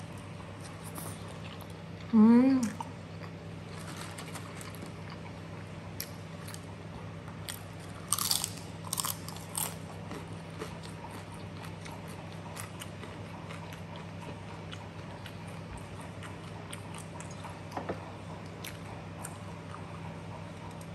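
Close-up chewing and wet mouth clicks of someone eating chicken satay, with a short, loud hummed 'mmm' about two seconds in and a run of smacking clicks around eight to ten seconds in. A steady low hum runs underneath.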